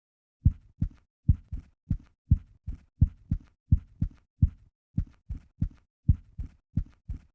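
Typewriter keys striking one by one at an uneven typing pace, about two to three dull, thudding strokes a second, starting about half a second in.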